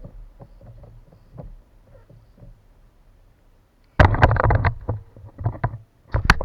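Knocks and rattles on a kayak: faint scattered taps at first, then a sudden burst of loud knocking and rattling about four seconds in, with a few more sharp knocks near the end.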